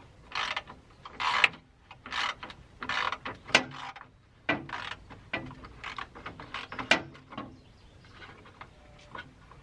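Hands working the plastic headlight assembly and grille trim of a 1988 Ford F-250 loose: a run of sharp plastic clicks, rattles and scrapes that thins to a few faint ticks after about seven and a half seconds.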